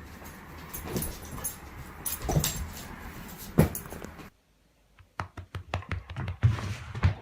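A dog whimpering, with a few short sounds. About four seconds in, the sound cuts off abruptly and a run of quick clicks follows.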